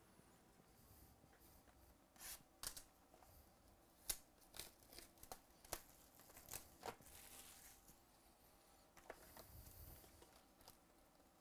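Clear plastic shrink wrap being torn and crinkled off a sealed box of trading cards: a quick run of sharp crackles and rips, then a few more about nine seconds in.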